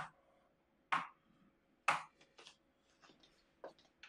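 Footsteps of shoes on a hard floor, about one sharp step a second, then several fainter, quicker clicks near the end.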